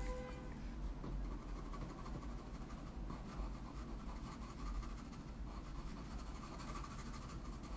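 Faint scratching of a red pencil making repeated short strokes on toned drawing paper.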